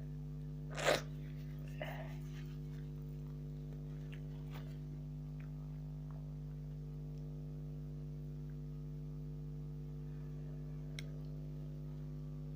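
A person with a cold takes a short, sharp breath about a second in, with a fainter one a second later, just after sneezing. After that only a steady electrical hum.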